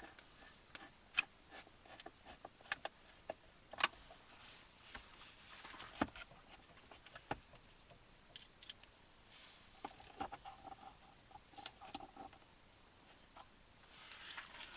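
Faint, scattered clicks and knocks of a dash mount being handled, fitted and screwed down onto a Jeep's dash, with short pauses between.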